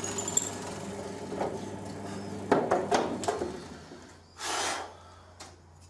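Benchtop drill press running with a steady hum while its bit drills out a 6 mm hole in a wooden knife-handle scale. About two and a half seconds in come several sharp knocks as the piece is handled, and a short hiss follows near the end while the motor keeps humming more faintly.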